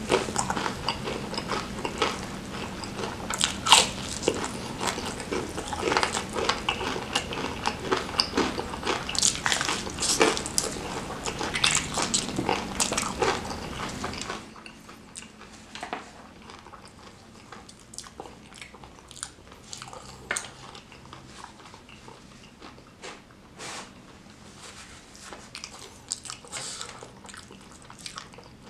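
Close-miked eating of crispy battered fried chicken: loud, dense crunching and chewing. About halfway through it drops suddenly to quieter, sparser chewing clicks.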